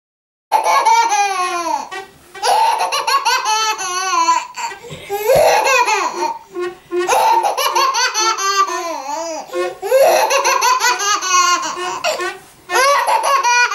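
A baby laughing hard in about six bouts of belly laughs and giggles, mixed with the creaking of a wooden wardrobe door that the baby pushes back and forth. The creaking door is what sets off the laughter.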